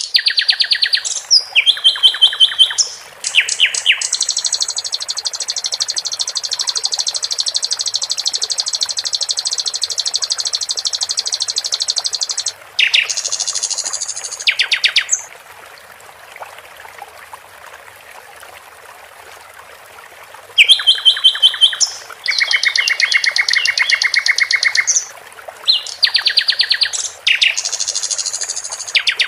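Common nightingale singing loud phrases of rapidly repeated notes, including one long rattling trill of about eight seconds. There is a pause of about five seconds past the middle before the song resumes, over a steady background of trickling water.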